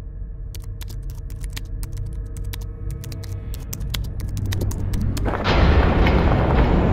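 Trailer-style soundtrack sound design: a low rumbling drone swells with scattered crackling clicks, then a loud boom hits about five seconds in and holds on as a dense burst of noise.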